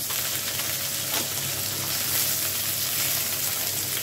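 Cut potato pieces sizzling steadily in hot mustard oil in a wok, just after being tipped in to fry.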